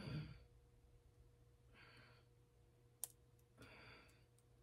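A woman breathing hard and faintly, one breath about every two seconds, as if out of breath from effort. There is a single sharp click about three seconds in.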